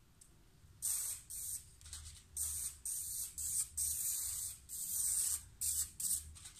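Aerosol can of spray contact adhesive spraying in a rapid series of short hissing bursts, starting about a second in. The can is running low, and the owner is unsure whether the nozzle is blocking up or the gas is running out.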